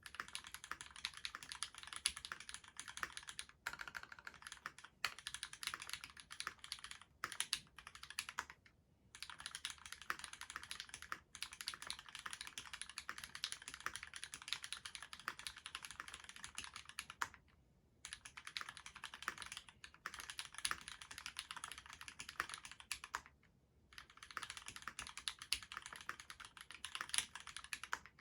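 Fast typing on a Duck Octagon v3 mechanical keyboard with lubed Cherry retooled black linear switches on a stainless steel plate, keys clacking in quick runs broken by short pauses. The GMK doubleshot ABS keycaps give the clack its pitch.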